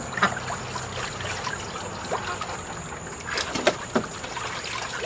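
Ducks splashing and dabbling in a shallow plastic kiddie pool of water: scattered small splashes and ticks, with a couple of louder splashes about three and a half to four seconds in.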